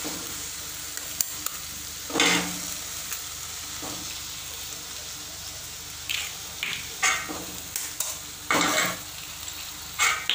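Drumstick leaves sizzling steadily in hot oil in an aluminium pan, with a metal slotted spatula scraping against the pan in short strokes, once about two seconds in and several times in the second half.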